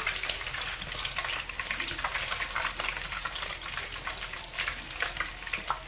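Hot oil sizzling and crackling steadily as bacon-wrapped, boudin-stuffed biscuits deep-fry, turned in the oil with tongs.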